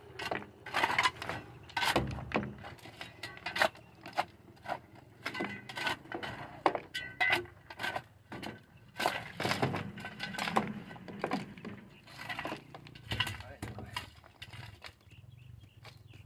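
Irregular clicks, knocks and clinks as PVC drain pipe and fittings are handled and worked among loose stones, with low voices in the background.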